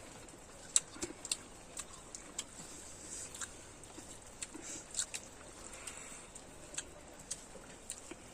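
Close-up mouth sounds of someone chewing pork intestine: irregular wet clicks and smacks, the sharpest just under a second in.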